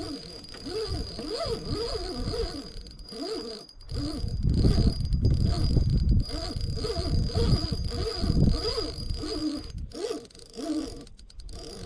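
Spinning reel's drag giving line to a hooked sturgeon, a buzz whose pitch rises and falls again and again as the fish pulls, over low wind rumble on the microphone.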